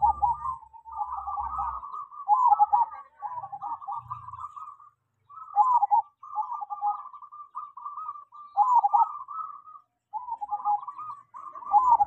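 Zebra dove (perkutut) cooing in quick runs of short, rolling phrases, with two brief pauses about five and ten seconds in. It is a bird trained, by being hoisted high on a pole, to sing for long spells.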